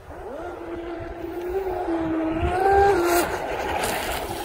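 Radio-controlled mono hull boat's motor whining as it runs fast across the water, its pitch climbing right at the start and again shortly before it drops away a little after three seconds. A low wind rumble runs underneath.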